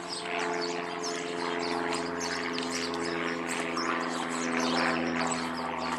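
Propeller aircraft flying by, a steady engine drone.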